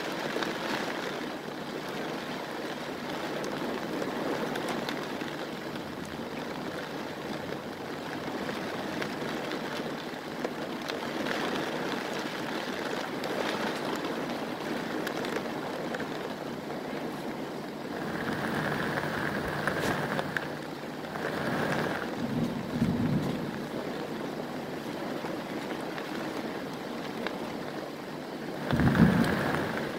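Heavy rain pouring steadily, with wind gusts. A few louder rushes come between about two-thirds and three-quarters of the way through, and a short low rumble just before the end is the loudest moment.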